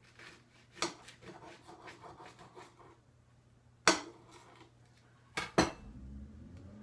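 Serrated bread knife sawing through a nori sushi roll with a few soft rasping strokes, set among sharp knocks: one about a second in, the loudest about four seconds in, and two close together near the end.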